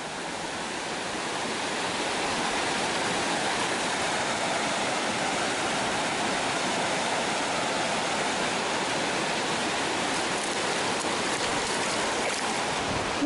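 Steady rush of water spilling over a low dam's weir into the pool below. Near the end, a hooked trout splashes at the surface.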